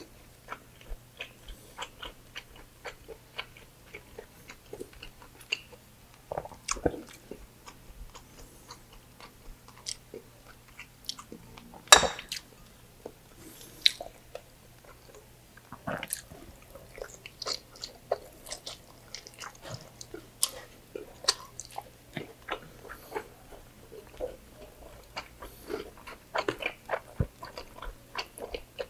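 Close-up wet chewing and biting of braised pork belly and rice eaten by hand: irregular lip smacks and mouth clicks. One sharper, louder click comes about twelve seconds in.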